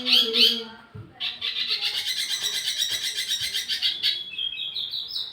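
Wambi mini songbird singing: a few quick chirps, then a long, fast, even trill lasting about three seconds, ending in a short run of notes stepping upward in pitch.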